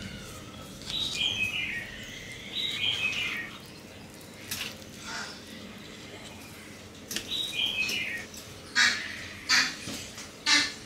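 A knife and a wooden spatula scrape and tap on a cutting board while cutting and lifting a slice of a thin egg-based pizza, with three short, sharp scrapes near the end. Behind this, chirping calls come twice as short runs of stepped notes.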